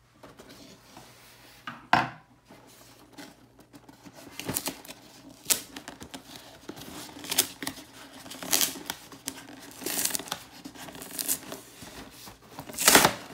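Cardboard shipping box being opened by hand: a single knock about two seconds in, then repeated tearing, scraping and crinkling of the cardboard, loudest near the end.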